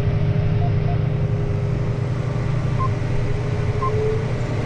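John Deere tractor engine running steadily, heard from inside the cab, with a steady hum over it. Two short high beeps come about a second apart in the second half.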